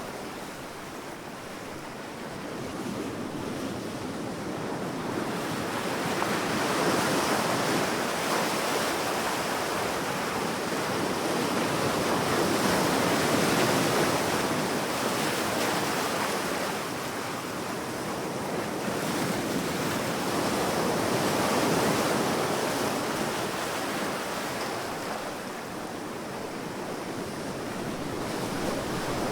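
Sea waves breaking and washing up a sandy beach. The surf swells and eases in slow surges several seconds apart, with no single sharp crash.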